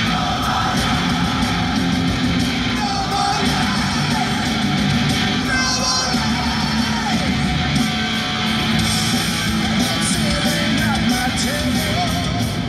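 Loud rock music with guitar and singing.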